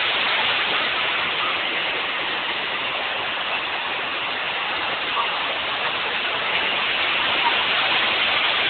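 Water pouring over a concrete weir and crashing into the pool below: a steady, unbroken rushing noise.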